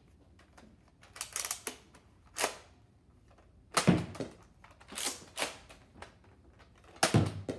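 Sharp plastic clicks and clacks at uneven intervals from a NERF Vortex Vigilon disc blaster being handled, the two loudest coming about four seconds in and just before the end.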